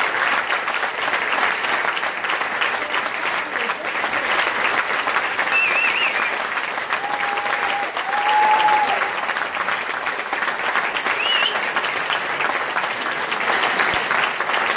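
Audience applauding steadily in a hall, a dense even clapping that doesn't let up.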